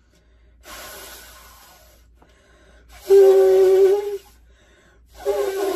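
A person blowing hard at birthday candles in three separate puffs. The first is breathy and fades; the last two are louder, with a hooting note in the voice. The puffs are not strong enough to put the candles out.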